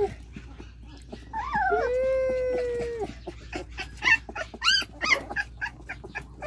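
A German Shepherd x Belgian puppy, 18 days old, crying: a short squeak, then one level cry lasting about a second, then a run of short high squeaks in the second half.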